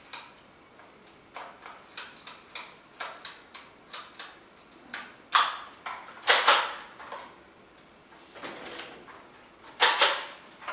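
A run of light wooden taps and clicks, then several louder knocks and clunks, the sharpest about halfway through and near the end: the glass-paned wooden doors and fittings of a carved antique cabinet being handled.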